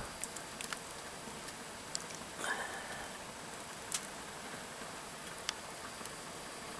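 Faint handling sounds as a lake trout's skeleton is lifted off the fried fillet in a metal camp pan: a few small, scattered clicks over a low steady hiss.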